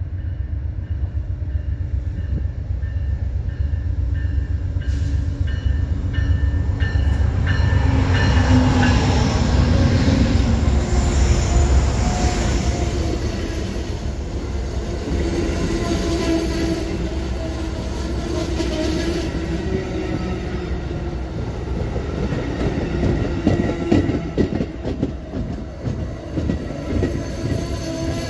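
Amtrak passenger train passing on the track, a heavy continuous rumble of wheels on rail that grows loudest about ten seconds in. Near the end comes a run of sharp knocks.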